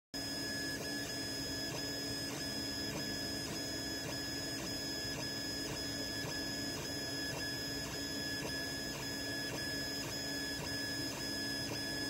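Creality CR-10 3D printer running on its stock A4988 stepper drivers while printing a first layer: the stepper motors give a steady high whine with a faint tick about three times a second, over the hiss of the cooling fans.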